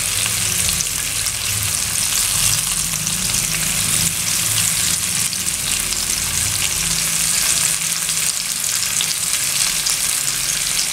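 Sliced shallots, garlic and chilies sizzling steadily in hot oil in a nonstick wok, stirred with a silicone spatula, while the aromatics are sautéed until they wilt.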